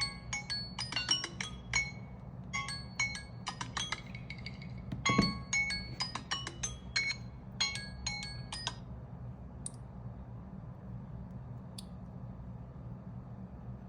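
Smartphone alarm or timer ringtone: a quick tinkling melody of short bell-like notes, which stops about nine seconds in. A knock sounds about five seconds in, and a faint low hum runs underneath.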